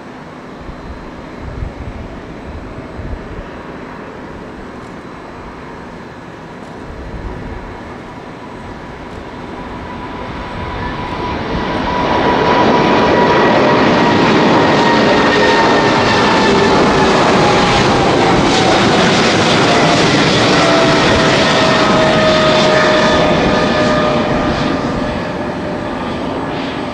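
Boeing 777-300ER's two GE90-115B turbofan engines at takeoff thrust, the jet noise building as the airliner rolls and lifts off, then loud for about twelve seconds as it climbs past. An engine whine slides down in pitch as it passes, and the sound eases off near the end.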